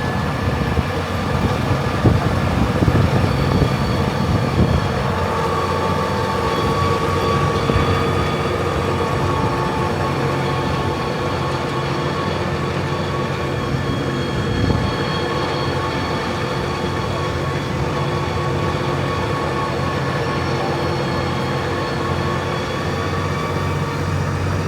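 Steady running noise of a tractor-pulled open passenger tram underway: engine and wheels rumbling with a constant whine on top.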